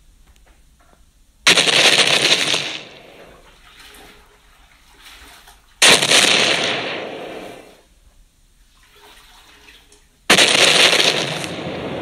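Tyrannosaurus roar sound effect, built from recorded big-cat and monster roars, sounded three times. Each roar starts suddenly and fades over about two seconds, with fainter sounds in the gaps between them.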